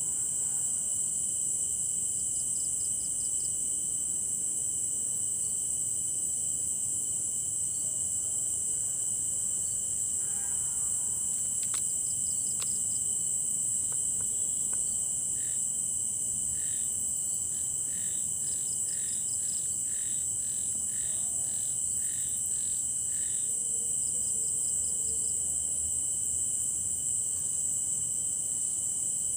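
Night chorus of crickets: a continuous high-pitched trill with a steadier, lower tone beneath it. About halfway through, a second caller adds a run of short, evenly spaced chirps.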